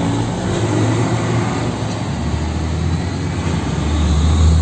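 UD Quester GKE 280 truck's diesel engine heard from inside the cab while driving, a steady low drone that swells louder near the end.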